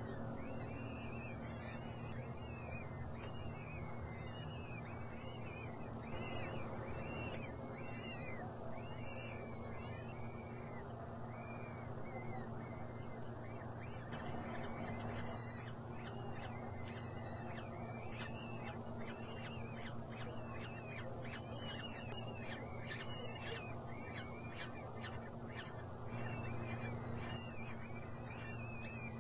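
Peregrine falcon chicks begging while being fed: a long run of short, high, arched cheeps, about two a second at first, coming faster and closer together from about halfway through. A steady low hum runs underneath.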